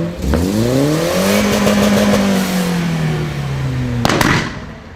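Car engine with a modified exhaust revving: the pitch climbs quickly in the first second, holds, then slowly falls. About four seconds in, a burst of sharp cracks and pops from the exhaust as the revs drop.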